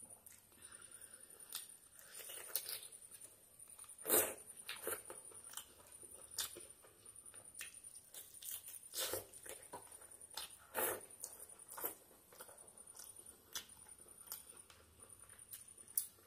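Close-miked eating sounds of rice and chicken curry eaten by hand: wet chewing, lip smacks and squelches of curry-coated fingers, coming at irregular intervals, the sharpest about 4 seconds in.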